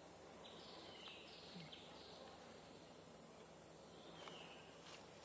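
Faint outdoor ambience: a steady, high-pitched insect drone, with a few faint, short bird chirps about a second in and again near the end.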